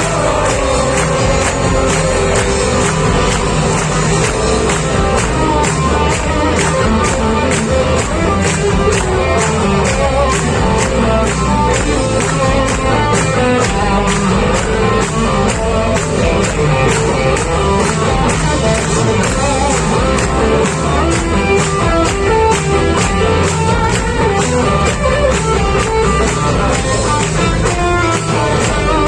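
Rock band playing live, guitars and drums with a steady beat.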